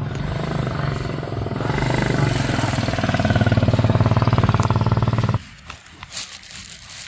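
An engine running, rising in loudness, with a fast, even pulse, then cut off suddenly about five seconds in.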